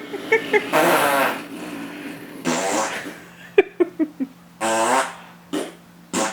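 A man making fake fart noises for a child, several loud buzzy blasts in a row.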